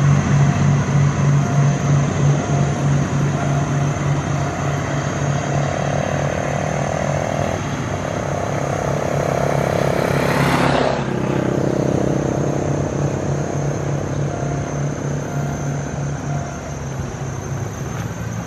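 Low, steady diesel drone from a GE diesel-electric locomotive hauling the train away. About ten seconds in, a road vehicle passes close by: its rush of sound swells, then drops in pitch as it goes past.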